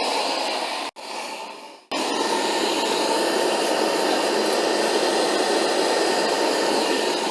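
Steady rushing of a vacuum motor on carpet-cleaning equipment, with no change in pitch. It cuts out about a second in, returns quieter, then comes back at full strength a second later.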